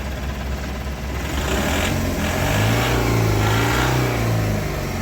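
Mahindra Supro BS6 diesel engine idling, then revved once about a second in, held up for about three seconds and let back down to idle, running after its DEF fault has been cleared.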